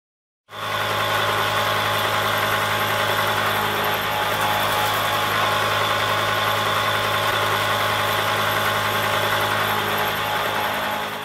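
A 125 mm disc milling cutter with indexable inserts cutting C45 steel in a half side-and-face pass: steady machining noise from the spinning cutter and spindle, with a constant low hum, starting about half a second in.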